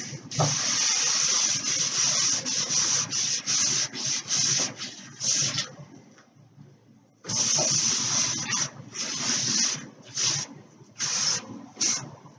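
Cloth rag wiping over a wooden china cabinet to pull off excess gel stain, in quick back-and-forth rubbing strokes. The rubbing pauses for about a second near the middle, then comes back as a run of separate swipes.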